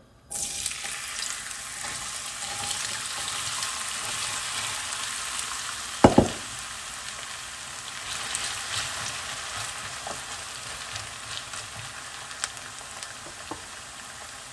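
Diced raw potatoes dropped into hot oil in a non-stick frying pan, starting to sizzle at once and frying with a steady sizzle and scattered crackles while a spatula stirs them. A brief loud double knock about six seconds in.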